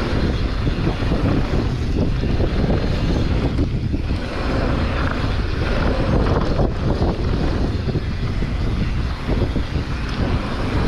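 Wind buffeting the microphone of a mountain bike rider's camera on a fast downhill run, with a steady loud rush and constant small knocks and rattles from the bike over rough trail.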